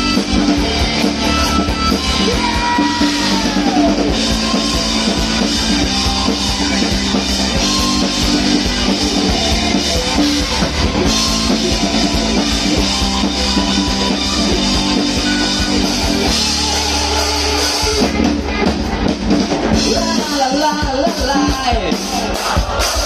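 Live rock band playing an instrumental passage on electric guitar, bass guitar and drum kit, loud and full. The sound thins briefly to a low held note about two-thirds of the way through, then the full band comes back in.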